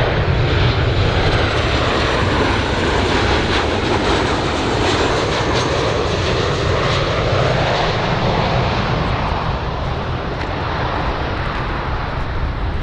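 Airplane engine noise: a loud, steady rush whose tone shifts slowly, easing slightly near the end.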